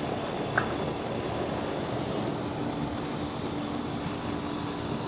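A steady low hum over even background noise, with a single faint click about half a second in.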